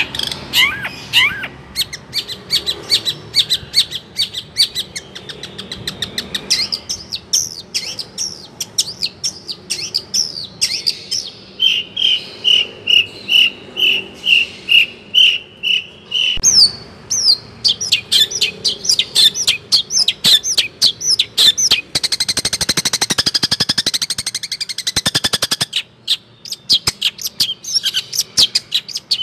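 A songbird singing a fast, varied song of chirps and whistles, with a run of about eight evenly spaced repeated notes in the middle and a rapid buzzing trill lasting a few seconds near the end.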